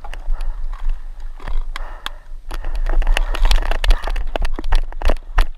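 Dry tall grass rustling and crackling as it brushes against the camera, with uneven footsteps. The clicks are irregular and sharp and grow denser about halfway through.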